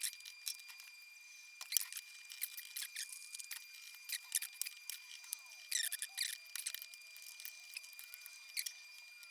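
Small screws being turned out of an old tube radio's metal chassis with a screwdriver: faint, irregular clicks and little squeaks of the tool in the screw heads, with a faint steady high whine behind them.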